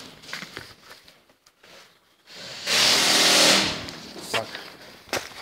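A loud rushing hiss lasting about a second, a little past the middle, amid scattered light knocks and handling noises.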